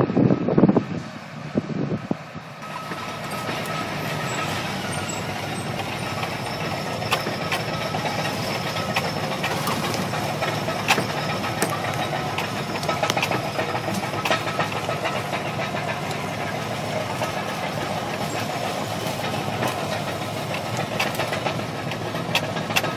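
Wind buffeting the microphone for the first two seconds, then a Caterpillar D7 bulldozer's diesel engine running steadily, with irregular metallic clanks and rattles from its tracks and gear.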